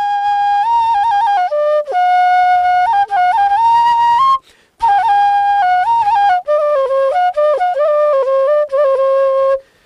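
Bamboo flute (bansuri) playing a melody in two phrases of held and stepped notes, with a short break between them.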